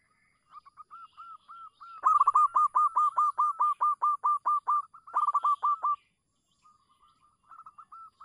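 Zebra dove (perkutut) giving its rapid staccato cooing: a run of short arched coos, about four or five a second, soft at first and loudest from about two seconds in, with a quicker burst near the middle-end. After a short pause a few fainter coos follow near the end.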